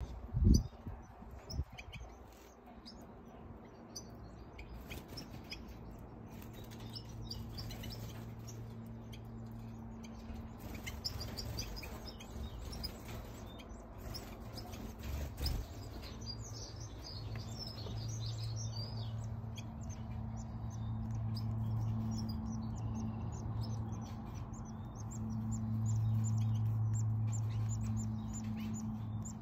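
Small caged finches, goldfinches, chirping and twittering: many short high calls, busier toward the end. Two sharp thumps near the start, and a low steady hum underneath that fades in and out.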